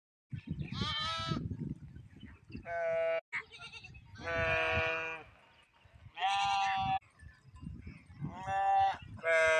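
Herd of goats and sheep bleating: about six separate bleats, roughly one every second and a half, the first wavering in pitch over a low rumbling noise.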